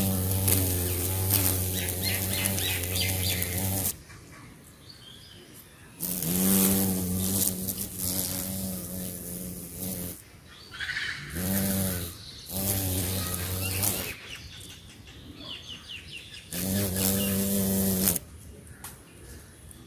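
Large carpenter bee buzzing in flight close to the microphone, in five bursts of about one to four seconds with short pauses between. The low buzz wavers up and down in pitch as the bee hovers and shifts position.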